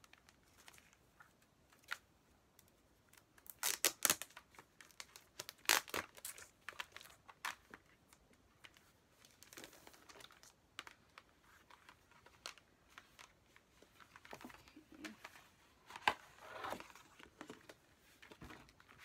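Plastic wrapping crinkling and rustling as a CD album package is opened and handled, with scattered sharp clicks and taps; the loudest crinkles come about four and six seconds in and again near the end.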